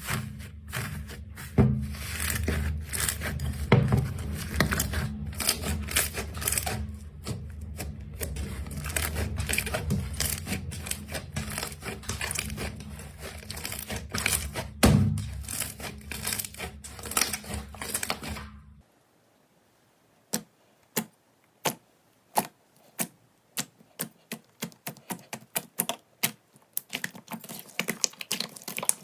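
Slime being squeezed and pressed by hand, giving dense crackling and popping clicks. It cuts off suddenly about two-thirds of the way through, then sparser sharp pops start and grow denser near the end.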